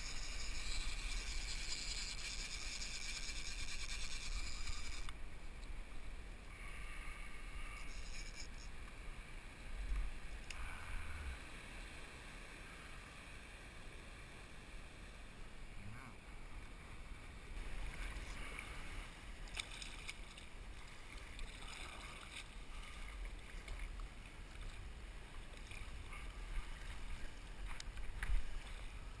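Water lapping and splashing against a plastic sit-on-top kayak hull under a steady low rumble, busiest in the first five seconds and quieter after, with a few light knocks later on.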